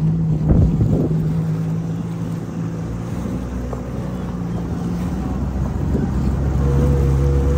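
Jet ski engine running at low speed on open water, with wind on the microphone; the engine note dips around the middle and grows louder near the end.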